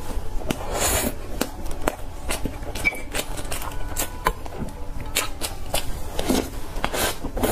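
Close-miked eating sounds: chewing and wet mouth smacks on soft cake topped with crushed chocolate cookies, made up of a string of quick, irregular clicks and smacks.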